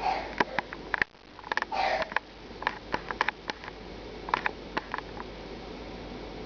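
A cat pawing at a mirror: irregular sharp taps and clicks come in quick clusters through the first five seconds. There are two short breathy noises, one right at the start and one about two seconds in.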